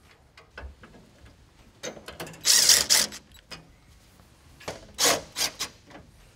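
Cordless drill driving in the grille's top bolts to snug them: one run of about half a second a little over two seconds in, then three short bursts near the end, with light clicks of handling between.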